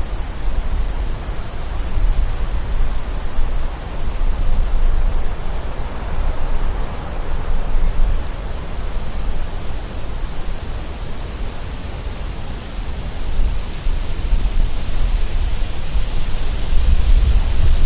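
Wind gusting through forest trees: a steady rushing noise that swells and eases every few seconds over a deep rumble, the gusts building stronger near the end.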